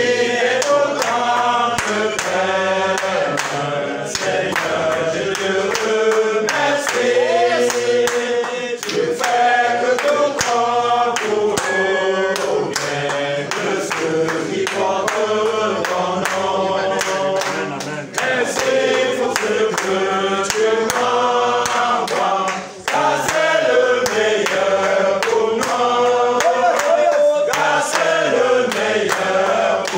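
A group of men singing a worship song together, with hand clapping keeping a steady beat.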